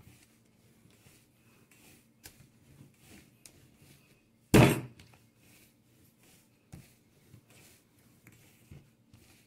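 Flour-tortilla dough being kneaded by hand on a tabletop: faint rubbing and light taps, with one loud thunk about halfway through as the dough ball is slapped down on the table.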